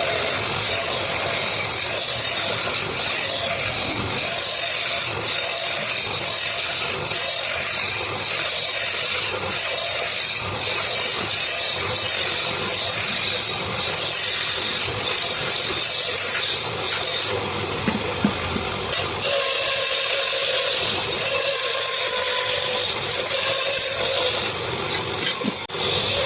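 Wood lathe running while a turning tool cuts the spinning wood, giving a steady scraping hiss that swells and dips with repeated strokes about once a second.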